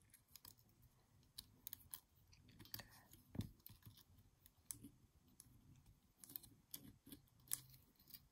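Faint, scattered small clicks and ticks of fingers working small springs and metal parts of a Brother KH840 knitting machine carriage, hooking the springs back into place; one click about three and a half seconds in is a little louder.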